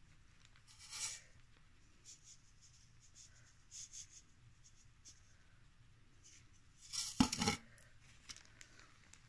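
Plastic sheet protector and damp paper tissue being handled, with scattered faint rustles and a short louder burst of crinkling about seven seconds in.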